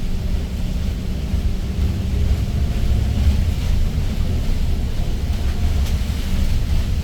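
Daewoo BS090 city bus on the move, heard from inside: a steady low rumble of its GL08P CNG engine mixed with road noise.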